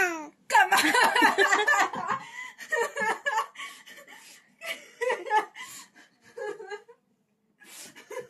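A person laughing in a run of short bursts, most intense over the first couple of seconds, then tailing off into scattered chuckles.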